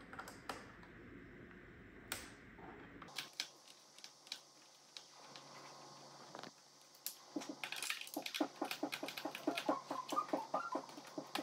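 Screwdriver clicking and scraping on screws in the plastic chassis of an iRobot Roomba 960. There are scattered clicks at first, then a quick, even run of clicks over the last few seconds.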